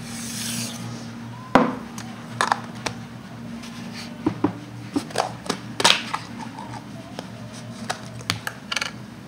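Plastic slime tubs and their snap-on lids being handled on a tabletop: a string of irregular sharp clicks and taps, the loudest about a second and a half in and again near six seconds, over a steady low hum.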